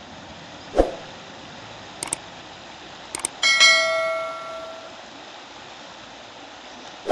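Subscribe-button animation sound effects: a whoosh, a few quick mouse clicks, then a notification bell chime that rings out and fades over about a second, with another whoosh near the end. Underneath runs the steady rush of a fast-flowing river.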